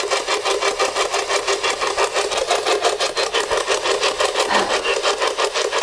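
Spirit box radio sweeping through stations: a fast, even chop of hissing static, several bursts a second, used to pick out words said to come from a spirit.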